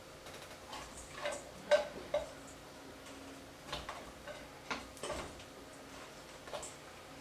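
Hands kneading dough in a stainless steel mixing bowl: irregular soft knocks and clicks of the metal bowl shifting on a wooden board, the sharpest pair about two seconds in, over a faint steady hum.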